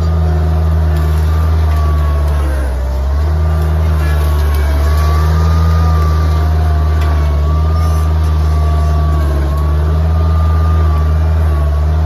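Bobcat 743 skid-steer loader's engine running steadily as the machine pushes brush with its bucket. A thin whine wavers up and down in pitch above the engine's drone.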